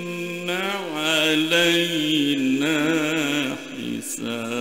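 A man's voice in melodic Quranic recitation (tajwid), holding long, drawn-out notes with wavering, ornamented turns and a short break for breath near the end.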